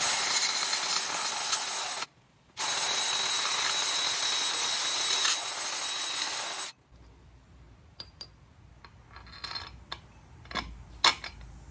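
Power drill running while enlarging a tight bolt hole so the bolt slides through freely: a steady run of about two seconds, a brief stop, then about four seconds more, stopping sharply. Afterwards faint clicks of metal parts being handled.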